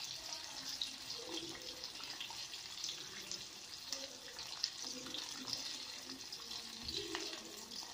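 Breaded chicken pieces deep-frying in hot oil in an iron kadai on a low flame: a steady sizzle with small crackles. A metal slotted spoon taps against the pan near the end.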